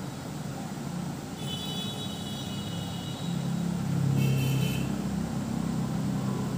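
Low rumble of road traffic that swells about three seconds in, with two high-pitched tones: one lasting about a second and a half, and a shorter one about four seconds in.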